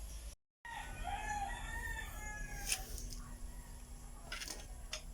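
A rooster crowing once in the background: one drawn-out call of about two seconds. Two sharp clicks follow after it.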